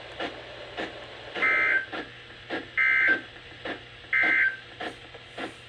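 Emergency Alert System end-of-message tones: three short digital data bursts, each about a third of a second, sent about a second and a half apart, marking the end of the weather radio alert. Irregular crackling clicks sound in between.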